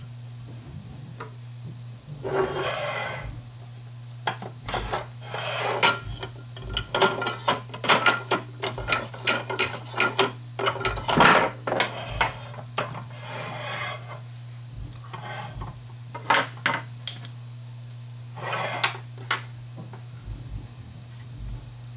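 Small plastic track parts being slid along and knocked against an aluminium curtain-track rail: rasping scrapes up to about a second long and many sharp clicks, over a steady low hum.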